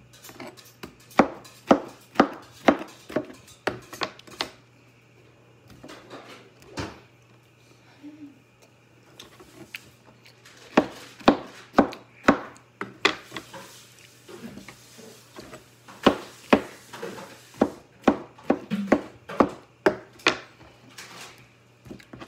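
A knife chopping on a cutting board: runs of sharp knocks, about two a second, separated by short pauses.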